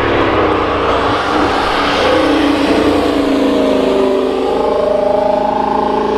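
Race car engine sound, running loud and revving, its pitch climbing steadily through the second half as it accelerates.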